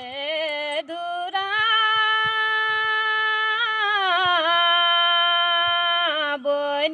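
A woman singing a Kumaoni nyoli folk song in long, drawn-out held notes, with short breaks for breath about a second in and near the end and a wavering turn in the melody around the middle.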